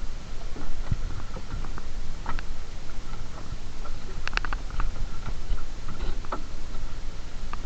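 Fishing net being hauled aboard a small boat by hand: irregular light patter and scattered clicks and knocks, with a quick cluster of clicks about four seconds in, over a steady rumble of wind and sea.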